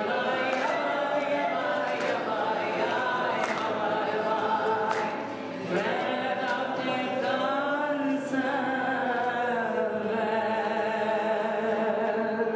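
A woman singing solo without accompaniment, a slow melody that ends on a long held note.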